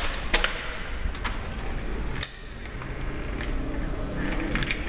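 Hotel room door being unlocked and opened: a key working the lock and latch gives a few sharp clicks and knocks, with a quick cluster of clicks near the end.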